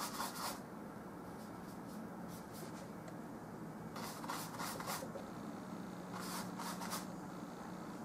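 Bristle paintbrush scrubbing and stroking oil paint in quick short strokes, in three bursts: one at the start, one about four seconds in, and one about six seconds in.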